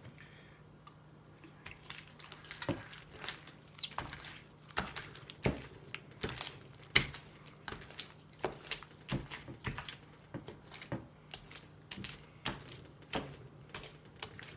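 Homemade slime being squished and kneaded by hand, giving irregular wet clicks and pops several times a second; the slime is still sticky and is being worked while it is activated.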